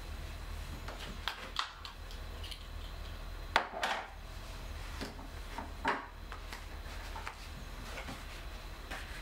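Small objects being picked up and set down on a desktop while it is cleared: scattered taps, clicks and paper handling, with two louder knocks about three and a half and six seconds in, over a steady low hum.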